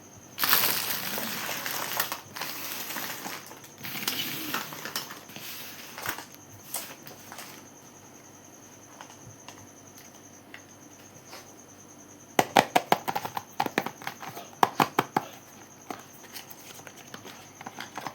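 Rustling and crinkling of makeup packaging for about five seconds, then, after a pause, a quick run of sharp taps and clicks lasting about three seconds, as of fingernails tapping on cosmetic containers.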